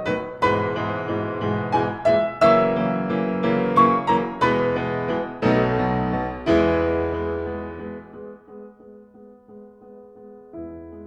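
Solo piano music: a run of struck notes for about the first six seconds, then a low chord held and slowly fading, with a few quiet notes over it.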